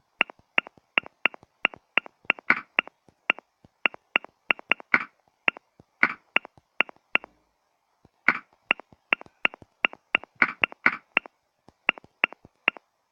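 Smartphone on-screen keyboard clicking as a message is typed: quick, uneven taps, a few a second, with a pause of about a second in the middle.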